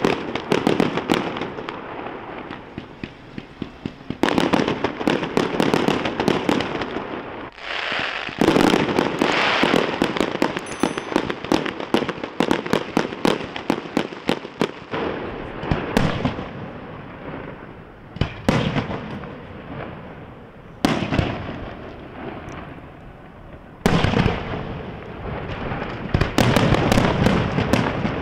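Aerial firework display: rapid bangs and crackling from shells bursting in the sky, coming in clusters with short lulls between.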